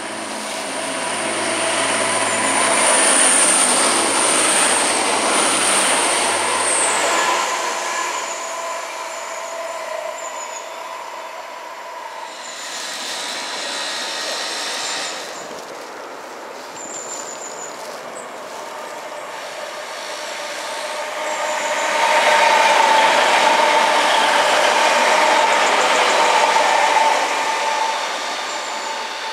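Trains passing through a station at speed. About a second in, one train goes by with a steady high whine and a low hum that cut off about seven seconds in. Near the end, a First TransPennine Express Class 185 diesel multiple unit passes with a steady mid-pitched tone, then fades as it runs away.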